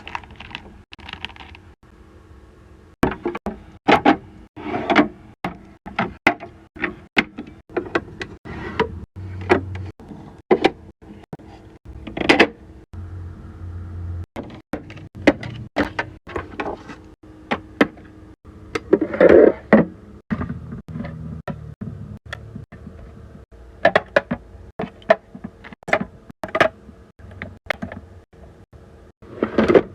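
Many irregular clicks, taps and clunks of skincare bottles and jars being handled and set down in a small fridge, over a steady hum.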